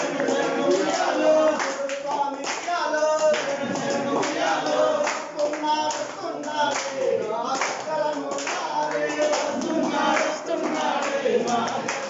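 A group of men singing an Ayyappa devotional bhajan together, keeping time with steady hand claps.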